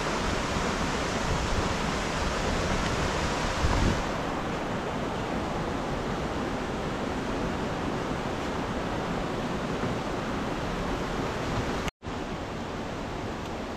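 Steady rushing of running water, even and unbroken; it cuts out for an instant near the end.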